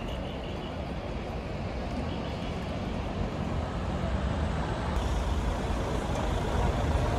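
Steady outdoor ambience: a low rumble mixed with the murmur of a large crowd, growing a little louder toward the end.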